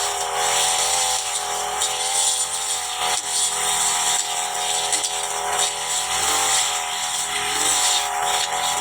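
Petrol brush cutter (motorised grass trimmer) running at high revs while cutting grass, its engine pitch dipping and recovering slightly under the load.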